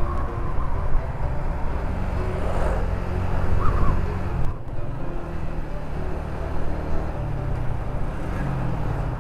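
Motorcycle engine running while under way, with a heavy wind rumble on the microphone. The sound dips briefly about four and a half seconds in, then carries on steadily.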